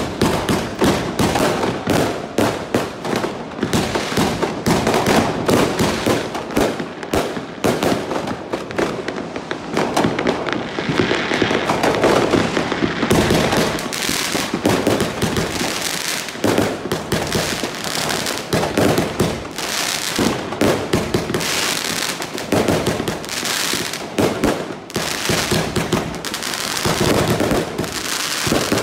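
Fireworks going off in a dense, continuous barrage of rapid bangs and crackles.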